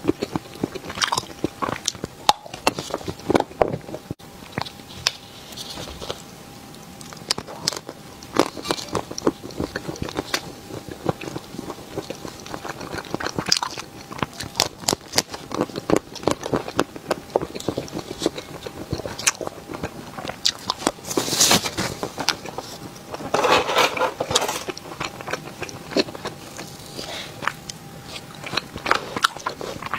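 A person biting and chewing Korean cake: a dense run of short, sharp mouth clicks and bites, with louder stretches about two thirds of the way in.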